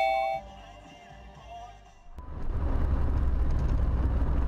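A short two-tone car horn blast right at the start, then quieter sound until about two seconds in. The sound then jumps to loud, steady road and engine noise heard from inside a moving car.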